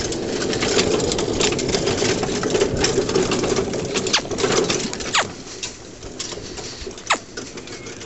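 Metal-framed pony cart rattling and clattering steadily as the pony pulls it over grass, easing off about five seconds in as it slows. A few short, sharp high-to-low squeaks follow.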